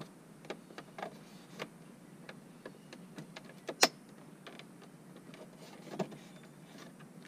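Plastic trim-removal tool prying and scraping at a plastic dashboard trim strip, with scattered small clicks and one sharp snap about four seconds in, as the strip is worked loose from its clips.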